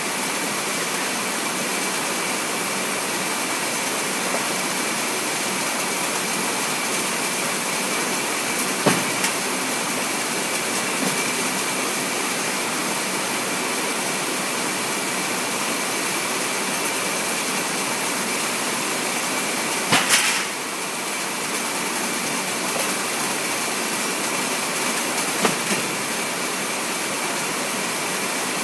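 Warehouse conveyor machinery running with a steady rushing noise and a faint high whine, broken by a few knocks, the loudest about twenty seconds in.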